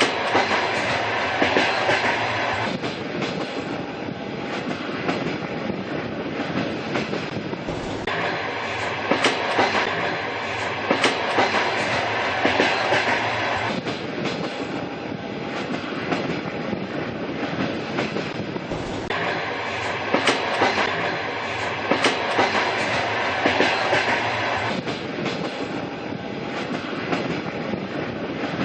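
A train running steadily, its wheels clicking in an even clickety-clack over the rail joints under a continuous rumble, with a brighter hiss that swells and fades every five or six seconds.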